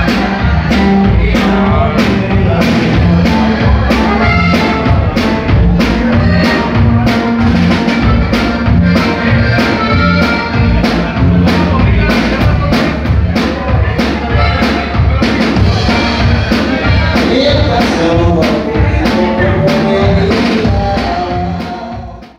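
Live norteño band music: accordion and guitar over a drum kit keeping a steady beat of about three hits a second, with a man singing. The music fades out near the end.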